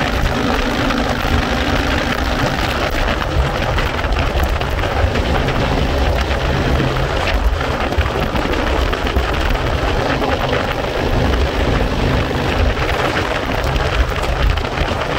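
Steady wind rush buffeting the microphone on a moving motorcycle, with the engine running underneath as a low steady hum.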